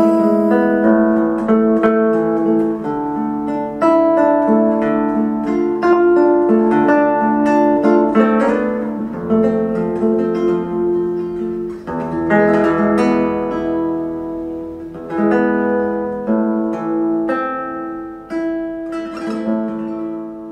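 Acoustic guitar playing a slow instrumental ballad ending, single plucked notes and chords ringing and dying away, growing quieter over the last few seconds.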